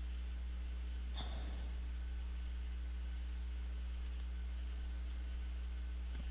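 Steady low electrical hum on the recording, with one sigh-like exhalation about a second in and two faint mouse clicks, the second near the end.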